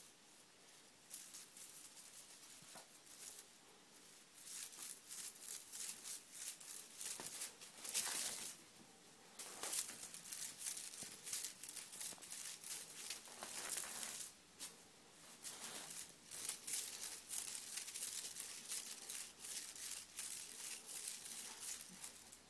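Irregular scratchy rustling and crinkling as kittens scrabble about in a wire-mesh cage: many brief crackles, loudest about eight and ten seconds in.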